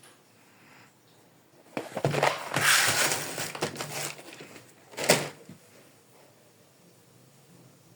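Small plastic toy pieces and packaging being handled: about two seconds of rustling and clicking, then one sharp plastic clack.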